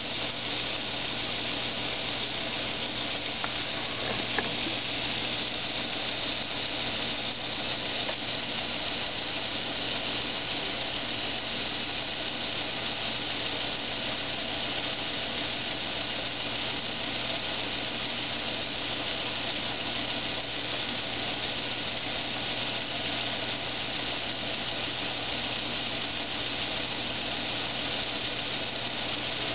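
Motor-driven kinetic sculpture wheel spinning: a steady mechanical whir with a steady low hum underneath.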